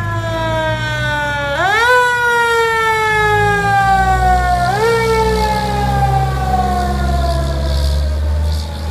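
A 1995 Pierce Arrow fire engine's siren, sweeping sharply up in pitch twice and winding slowly down after each rise, over the low running of the truck's engine as it pulls away.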